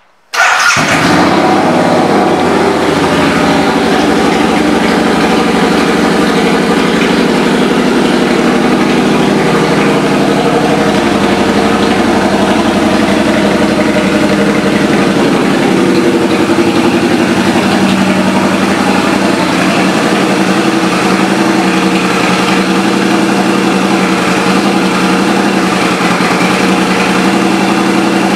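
2004 Harley-Davidson V-Rod's liquid-cooled Revolution V-twin with an aftermarket exhaust, starting up in a sudden burst and then idling steadily and loudly.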